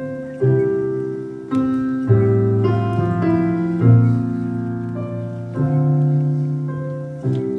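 Piano playing a slow chord progression: each chord is struck and left to ring and fade before the next, every one to two seconds.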